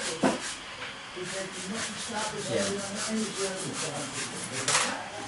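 Model train running on the layout track: a steady rubbing hiss with quick, regular clicking, over low voices in the room. A short louder hiss comes near the end.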